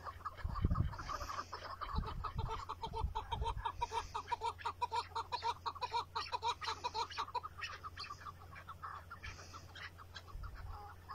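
Chukar partridge calling a rapid run of short clucking notes, several a second, which thins out and fades about eight seconds in. A few low thumps sound in the first few seconds and again near the end.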